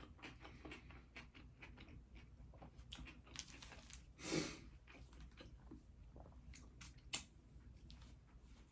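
Close-up chewing and biting of a Subway turkey and bacon sub: soft, wet mouth clicks throughout. A louder, longer mouth noise comes about four seconds in, and a sharp click near seven seconds.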